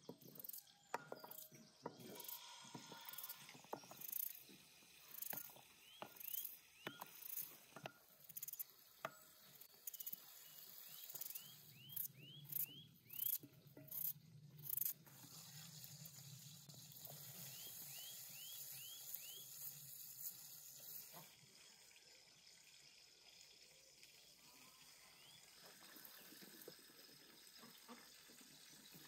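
A knife cuts a peeled potato by hand into thin slices that drop into an enamel bowl: a run of sharp clicks and taps through the first half, then quieter handling. Small birds chirp in short runs in the background.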